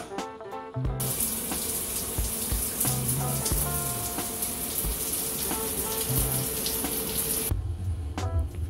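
Water running steadily, a dense hiss that starts about a second in and stops suddenly near the end, over background music.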